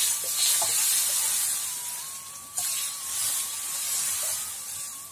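Fried spice paste and oil in a steel wok sizzling and hissing as thick coconut milk is poured in, the sizzle dying down steadily toward the end. A couple of light clicks along the way.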